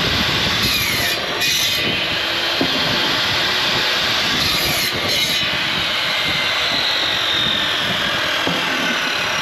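Wood-Mizer band sawmill running steadily, its engine and band blade cutting through a log.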